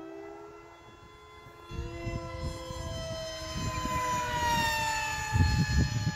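High whine of an RC model jet's electric ducted fan in flight. The pitch jumps up a little under two seconds in, then slides steadily down over the last couple of seconds.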